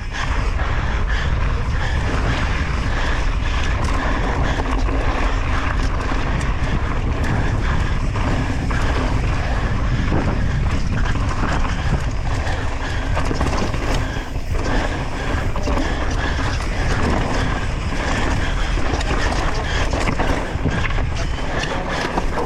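Downhill mountain bike descending at speed: wind rushing over the microphone and tyre noise on dirt, with frequent short clatters and rattles from the bike over rough ground.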